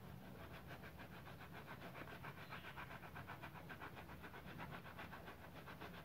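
A stiff-bristled scrub brush rubbing quickly back and forth over a wet, soapy abacus part, making rapid rhythmic scratchy strokes, about seven a second.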